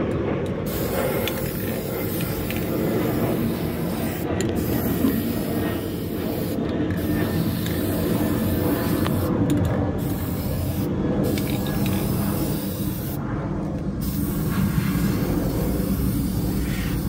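Aerosol spray-paint can hissing in long sprays, cutting off briefly about five times as the nozzle is released, over a steady low background rumble.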